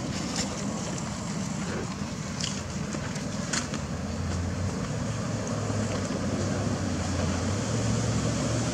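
Low steady hum of a motor vehicle's engine running nearby, growing stronger about halfway through and rising a little in pitch near the end, over outdoor background noise with a few faint clicks.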